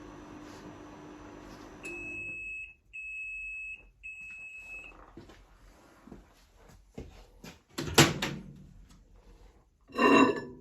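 Miele microwave oven running with a steady hum that stops about two seconds in, followed by three long beeps at one pitch marking the end of the cycle. Then a few light clicks, a sharp loud clack about eight seconds in, and a loud knock near the end.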